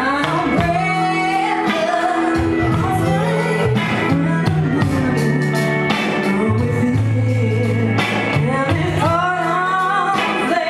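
Live band music: a woman singing a melody into a microphone over amplified electric guitar and keyboard, with steady low sustained bass notes underneath.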